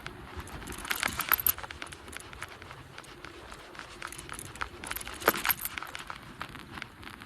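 Light metallic clinking and jangling in two short clusters, one about a second in and one about five seconds in, over a faint steady background noise.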